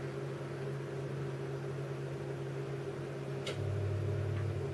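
Steady electrical hum of a running appliance, with a single click about three and a half seconds in, after which a lower hum joins for about a second.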